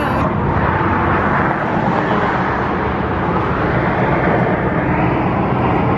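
Steady road traffic on the highway bridge beside the walkway: a continuous, even rush of passing vehicles with no single event standing out.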